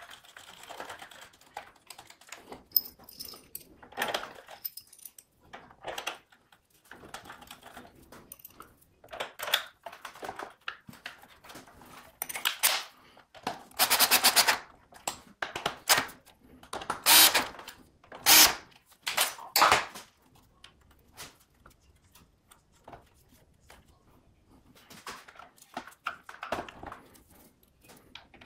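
A cordless drill/driver runs in several short bursts, driving screws to fasten the motor housing back onto a DeWalt miter saw. Between the bursts, parts click and knock as they are handled and fitted.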